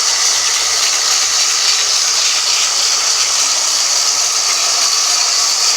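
Band sawmill running, a loud, steady hiss with no breaks.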